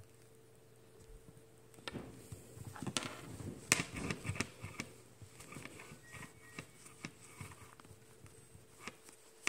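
Handling noise of a microfiber cleaning cloth being rubbed over a phone screen: a burst of rustling, light knocks and taps about two seconds in, the sharpest tap near the middle, then scattered soft ticks.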